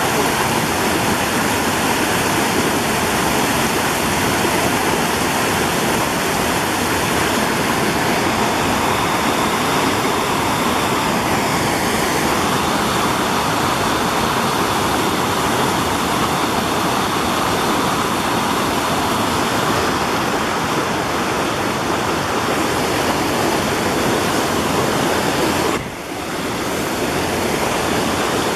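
Woodland brook pouring over rock ledges and small cascades: a steady, loud rush of falling and running water, dropping for a moment near the end.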